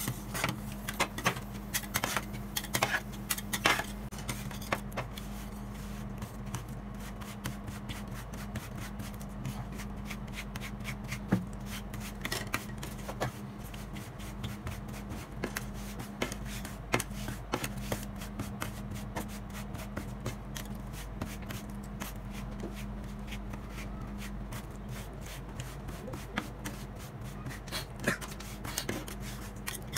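Metal spatulas scraping and smoothing a soft ice cream mixture across a frozen steel cold plate, spreading it into a thin sheet, with sharper taps and clacks of the blades on the plate in the first few seconds. A steady low hum runs underneath.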